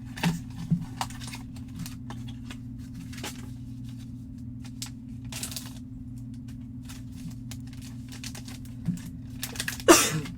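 Hands opening a trading-card box and handling its packaging and the graded card slab inside: scattered light clicks, taps and brief rustles, with one louder rustle or scrape near the end. A steady low electrical hum runs underneath.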